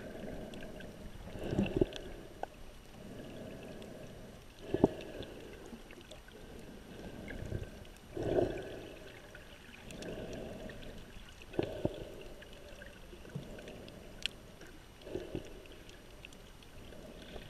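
Muffled underwater sound through a GoPro's waterproof housing: water sloshing and rushing in swells every few seconds as the snorkeler swims, with a few sharp knocks against the case.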